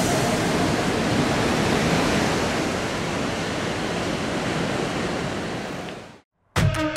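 Ocean waves breaking, a steady wash of surf that fades out near the end.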